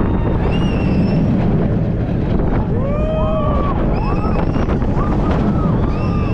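Roller coaster ride heard from on board: wind rushing over the microphone with the train's rumble underneath, and riders screaming several times, several cries overlapping around the middle.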